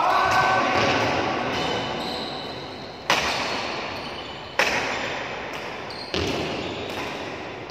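Badminton racket hitting the shuttlecock during a doubles rally: three sharp hits about a second and a half apart, each ringing out in the echo of a large hall.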